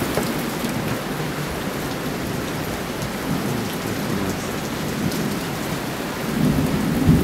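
Heavy rain pouring steadily in a thunderstorm, with a low rumble of thunder building near the end.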